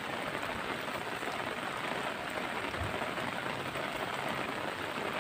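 Light rain falling steadily, an even patter of drops.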